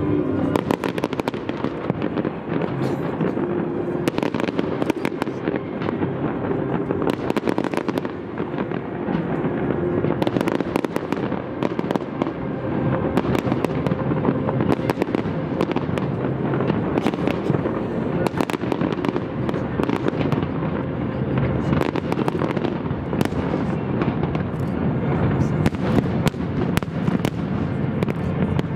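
Fireworks display: aerial shells bursting one after another, a dense, unbroken run of sharp bangs and crackles.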